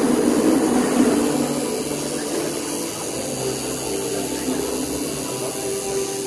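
Electric tattoo machines buzzing steadily, their pitch shifting slightly partway through as the needle works.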